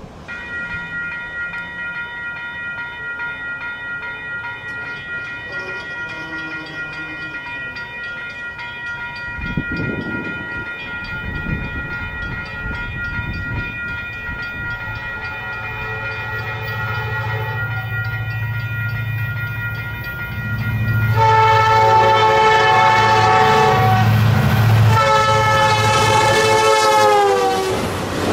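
Union Pacific passenger train's diesel locomotive approaching and passing: its air horn sounds a long, steady chord from a distance, then two much louder blasts about three-quarters of the way in, the chord sliding down in pitch as the locomotive passes. The rumble of the locomotive's engine and wheels grows underneath as it nears.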